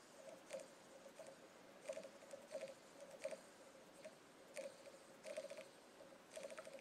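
Faint, scattered light clicks and rustles of fingers handling fly-tying dubbing, picking fibres off and setting them into a waxed thread loop at the vise.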